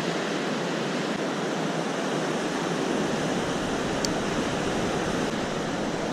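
Steady rushing of fast-flowing river water, even and unbroken, with one faint click about four seconds in.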